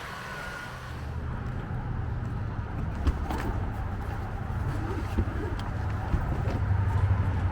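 Car engine and road noise heard from inside the cabin, a steady low hum that starts about a second in and slowly grows louder, with a few faint clicks.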